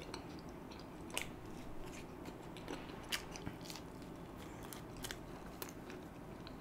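Close-miked chewing of a mouthful of stuffed garlic bread: irregular small wet clicks and smacks of the mouth, with no words.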